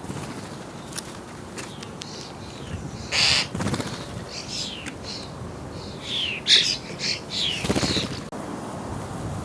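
Starlings calling: harsh, hissy begging calls from chicks being fed. One loud burst comes about three seconds in, then a cluster of short downward-sliding calls and harsh bursts between about six and eight seconds.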